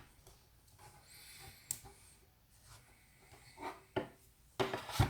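Light handling noises: a few sharp clicks and knocks with faint rustling in between, as a tablet is set in and moved about on a desktop tablet stand.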